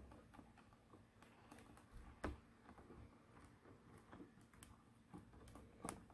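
Faint, scattered taps and clicks of fingertips pressing on the clear plate of a stamping platform, pushing the stamps onto the cardstock. The sharpest click comes about two seconds in and another near the end.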